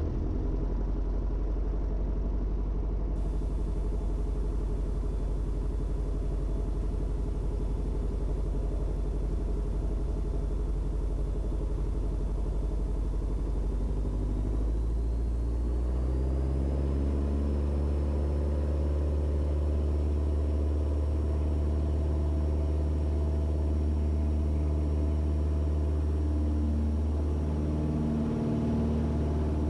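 Van's RV-6A's piston engine running steadily at low power through the cockpit audio, then opened up about fifteen seconds in, its pitch rising and holding at a higher, louder drone as the plane goes to takeoff power.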